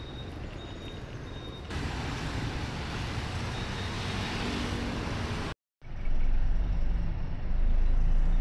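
Street traffic dominated by motorbike scooters running and passing, a steady din that changes twice as the scene cuts; after a brief dropout a little past halfway, the low rumble of traffic is louder. A thin high steady tone sounds over the first couple of seconds.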